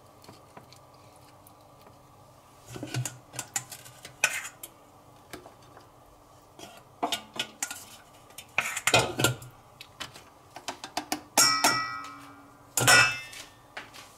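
Metal kitchenware and utensils clattering: scattered knocks and scrapes, then two loud clanks near the end that ring briefly and die away.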